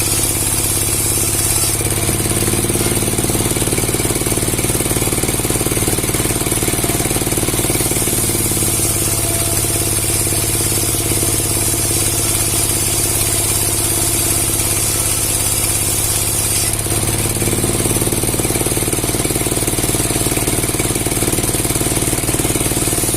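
An engine or motor running steadily at an even speed, its tone shifting slightly about two seconds in and again near the three-quarter mark.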